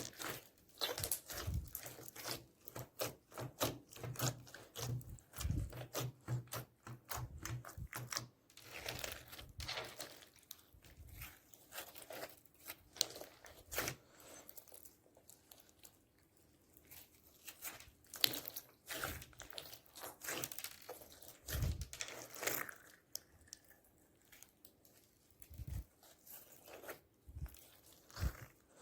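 Hands squeezing, stretching and mixing slime: many quick sticky clicks and pops in an irregular stream, thinning out and growing quieter in the second half.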